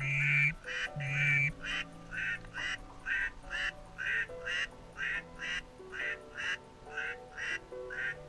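Duck quacking in a long run of about two quacks a second: the first two quacks are long and loud, and the rest are short and slowly fade. Background music with held notes plays under it.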